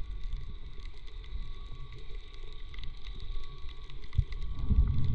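Underwater ambience through a camera housing: a constant low rumble of water with many faint scattered clicks. A thud and a louder low surge come near the end.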